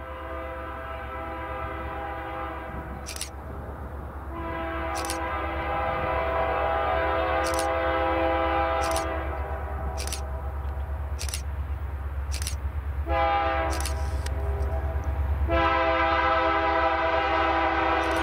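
A diesel freight locomotive's air horn sounds the grade-crossing pattern: two long blasts, a short one, and a final long one. Under it is the locomotive's steady low engine rumble.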